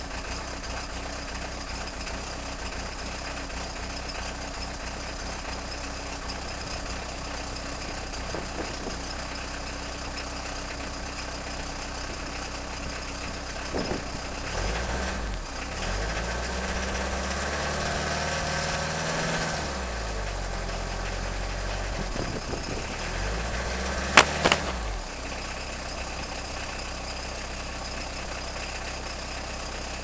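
Peugeot 306 turbo diesel engine idling cold just after a hard start, a condition the owner puts down to injectors on their way out. From about 14 to 25 seconds in, wind gusts buffet the microphone, with two sharp knocks near 24 seconds.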